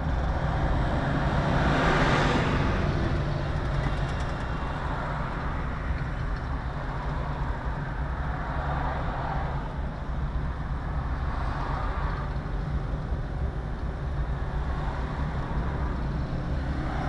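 Steady engine and tyre noise of a car driving along the road, heard from inside the cabin, swelling briefly about two seconds in.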